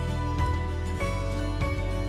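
Background music: an instrumental with held notes that change about every half-second to second over a steady low bass.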